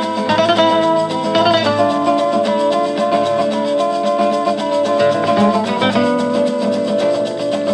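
Mexican-style instrumental music: plucked acoustic guitars with a maraca shaking a steady beat, over long held notes.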